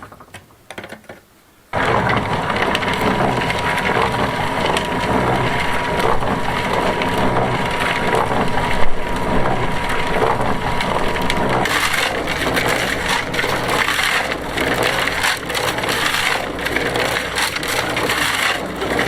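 Electric concrete mixer switched on about two seconds in, its drum turning and churning a gravel, sand and cement mix with a continuous loud grinding rattle over a pulsing motor rumble.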